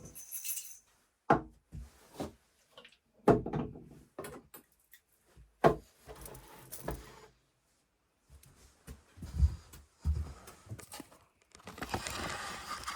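Handling noises: a few sharp knocks, the loudest about a second, three seconds and five and a half seconds in, with lighter clicks between. Two low thuds come later, then a rustle near the end.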